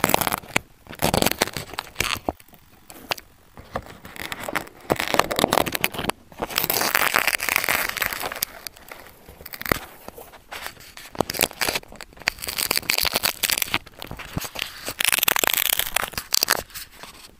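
Handling noise right at a small onboard camera's microphone: grass brushing against it and fingers rubbing and knocking on the housing. It comes as irregular scraping and crackling in several loud spells, with sharp clicks and short quieter gaps.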